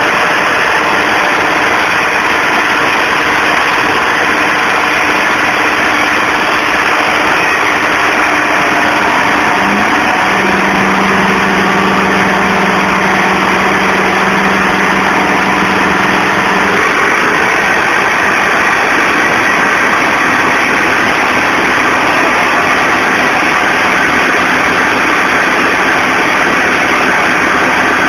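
Two tractor diesel engines, a John Deere and a Swaraj 855, running hard under full load as they pull against each other back to back. A steady note holds for several seconds in the middle.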